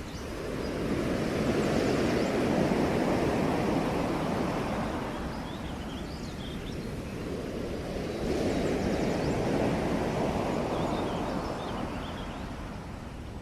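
Ocean waves washing onto the shore, the surf swelling and fading twice, with a few faint high chirps above it.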